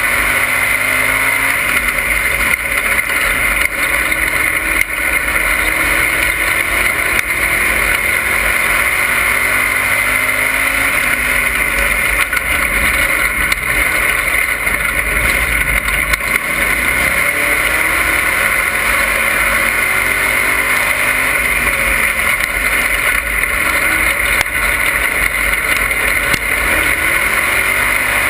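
Dirt-track race car engine at racing speed, heard from inside the cockpit. Its pitch rises and falls again and again through the laps, over a steady rushing noise.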